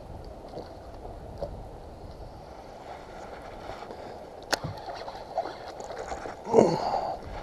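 Water lapping and sloshing against a boat hull in strong wind, a steady rushing noise. A sharp click comes about four and a half seconds in, and a louder knock-like sound near the end.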